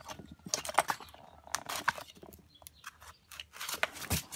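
Irregular light clicks and taps of hand tools and small parts being handled while a chainsaw is taken apart.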